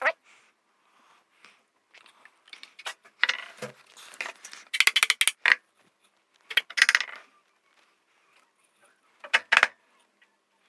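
Intermittent clinks and scrapes of tools and small metal parts being handled while a car heater blower motor is taken apart. They come in about five short bursts with quiet pauses between them.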